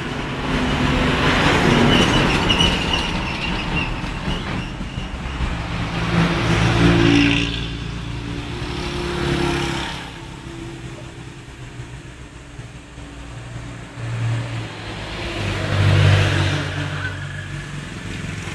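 Passing road traffic: motor vehicle engines swelling and fading away about three times.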